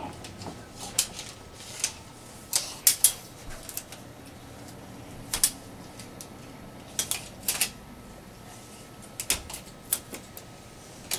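About a dozen sharp clicks and snaps at irregular intervals, from a retractable metal tape measure being handled: the blade pulled out, locked and let go.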